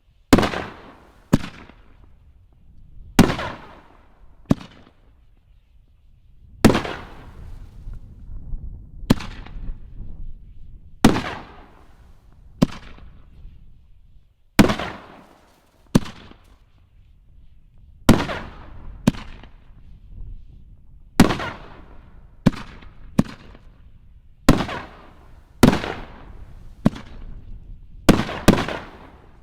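5-inch Holy Nishiki canister shells being fired in quick succession from a rack: about twenty sharp booming reports at uneven intervals, each trailing off in a rumbling echo.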